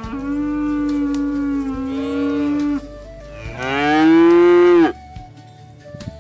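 Cattle mooing twice: a long, steady moo, then after a short pause a louder, shorter moo.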